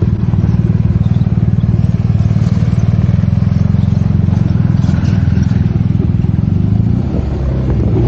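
Motorcycle engine running steadily at low road speed with a fast, even beat. About seven seconds in its note changes and the level drops a little.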